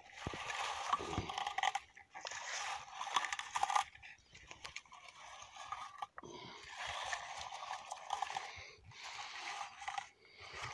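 A hand-held metal bilberry comb raked through bilberry shrubs, its tines scraping and rustling through the leaves and stripping berries. There are repeated passes of about two seconds each, with short pauses between them.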